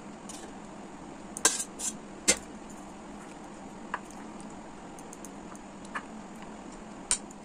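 A metal spoon clinking and knocking against a bowl a handful of times, sharpest about one and a half and two and a half seconds in, as pieces of hilsa fish are turned through a thick mustard marinade.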